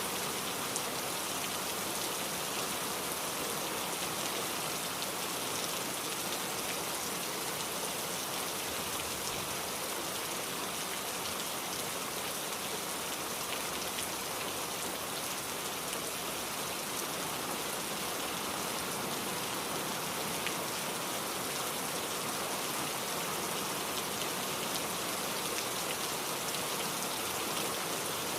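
Heavy rain falling steadily, an even hiss of many drops with fine pattering ticks.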